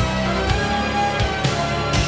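Background game-soundtrack music, held tones over a steady beat.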